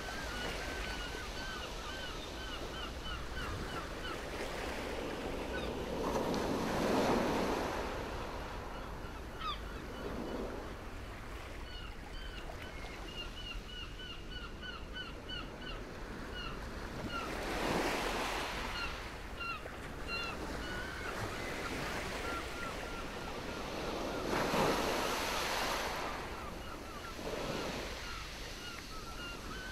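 Sea waves washing onto a stony beach below a cliff, with three larger surges rising and falling over the steady wash. A bird chirps throughout in quick runs of short high notes.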